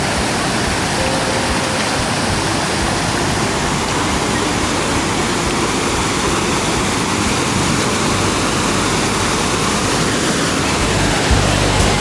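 Waterfall rushing, a loud, steady noise of falling water. Near the end, low rhythmic thumps of background music come in over it.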